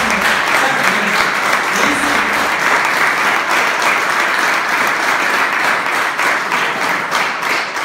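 Audience applauding: dense, steady clapping that holds at one level throughout.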